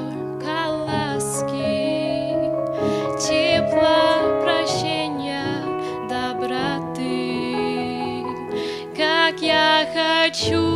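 A slow Russian Christian hymn sung by a solo voice with wavering held notes over a piano or keyboard accompaniment.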